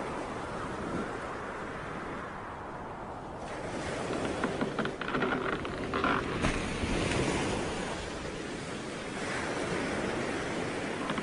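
Sea waves washing ashore, a steady rushing surf that swells and eases.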